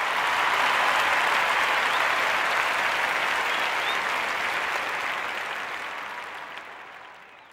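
Canned crowd applause, steady for several seconds and then fading out near the end.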